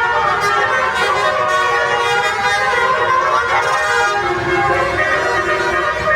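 Telolet horn, the multi-tone musical bus horn, sounding a continuous run of notes that change pitch in steps, several tones together, over a low rumble.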